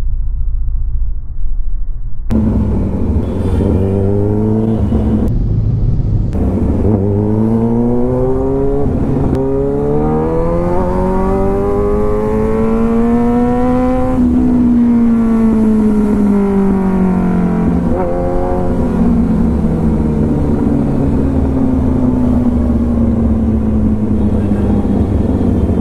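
Kawasaki Ninja motorcycle engine accelerating through the gears: the pitch climbs in three pulls with two shifts between them. It then winds down slowly as the bike decelerates, with a short break about two-thirds of the way through.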